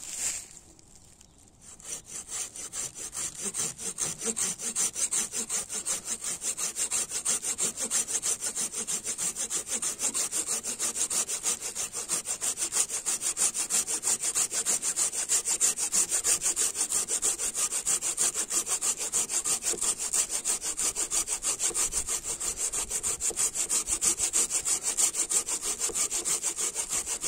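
Silky Pocketboy 130 folding pull saw cutting through a thick branch: fast, even back-and-forth saw strokes that start about two seconds in and keep a steady rhythm.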